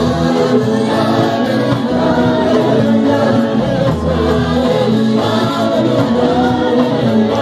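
Gospel worship song sung by a group of voices with a live church band of keyboard, electric guitar and drums, loud and steady.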